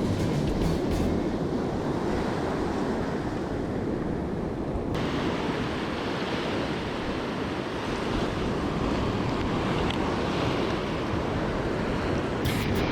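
Steady rush of wind and waves, with wind buffeting the microphone. The hiss turns suddenly brighter about five seconds in.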